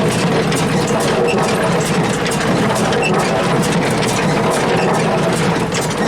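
Tractor running a John Deere hay baler: a steady engine drone with the baler's mechanism clicking in a regular rhythm, a few clicks a second.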